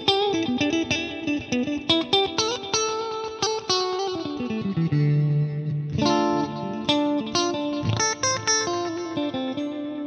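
Ibanez electric guitar played through a Fractal Axe-Fx III modeler on a clean lead preset with delay. It plays a single-note melodic line of quick runs, sliding down to a held low note about halfway through before the runs pick up again.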